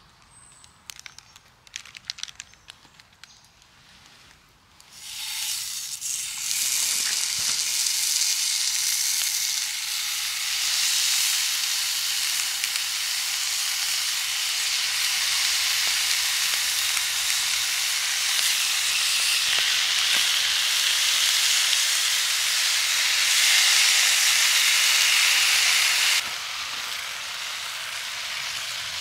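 Bacon sizzling in a frying pan over a small wood-burning stove, a steady hiss that starts about five seconds in after a few faint clicks and drops in level near the end.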